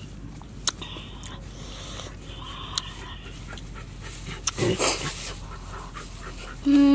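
A fork clicks lightly against a metal tray a few times. A loud breathy rush comes about two-thirds of the way in. Near the end a short held hum drops in pitch.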